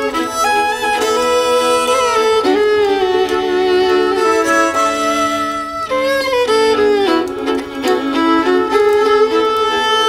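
Violin played with the bow: a melody of held notes, often two sounding together, with slides between pitches.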